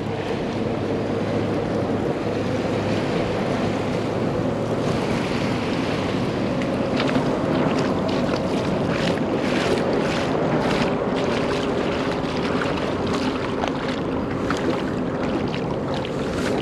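Wind buffeting the microphone over small waves lapping at the shore, with a faint steady drone underneath.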